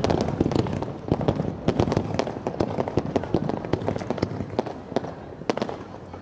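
Fireworks crackling: a dense run of quick, sharp pops that thins out over the last couple of seconds.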